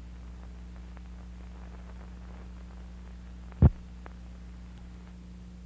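Steady low electrical hum, with one sharp thump a little past halfway through.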